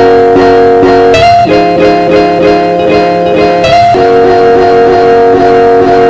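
Instrumental intro music: a quick, even, repeating pattern of plucked notes over held chords that change a few times.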